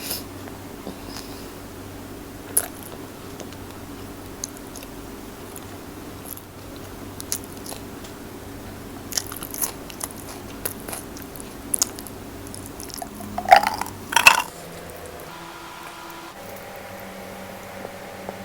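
Close-up eating sounds: a person biting and chewing food with scattered crunches, the loudest run of crunches about three-quarters of the way through. A low steady hum lies underneath.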